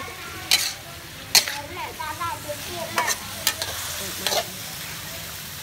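Metal spatula scraping and clanking against a steel wok as beef, cauliflower and carrots are tossed in a stir-fry, over a steady sizzle. There are about five sharp scrapes.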